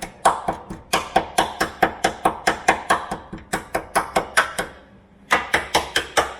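A tool rapidly jabbing and tapping at rusted steel on an MX5's bodywork, about five sharp metallic strikes a second with a short pause near the end, probing the rust to see how far the rot goes.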